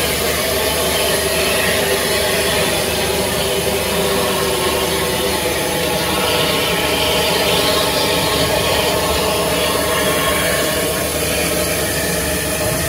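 Battle of Britain class steam locomotive 92 Squadron standing in steam, with a steady loud hiss of escaping steam that swells for a couple of seconds about six seconds in.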